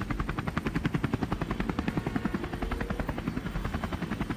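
Helicopter rotor chopping steadily, a fast, even beat of about ten blade slaps a second.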